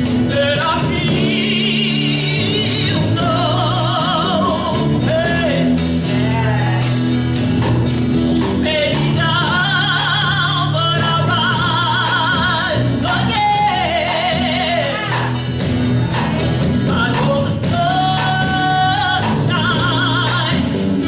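Live gospel song: a lead voice, with other voices joining, sings sustained lines with vibrato over a band with bass and drums.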